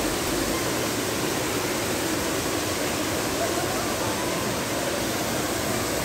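Man-made waterfall pouring down a rock face into a pond: a steady, even rush of falling water.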